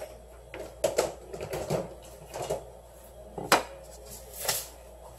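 Irregular sharp clicks and short plastic-like rustles of hands handling a plate of sliced sea bass sashimi, with a pair of clicks about a second in and the loudest single click a little past the middle.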